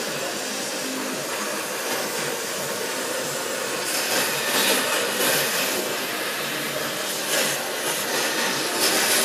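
Gas cutting torch hissing steadily while cutting through the car body's steel, with louder, rougher surges of hiss from about four seconds in as sparks spray from the cut, several times.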